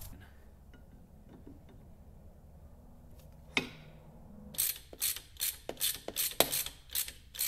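Ratchet wrench clicking in quick runs, about four clicks a second, as it tightens the nut that holds the handwheel onto a lathe tailstock screw. A single sharp knock comes about three and a half seconds in, before the clicking starts.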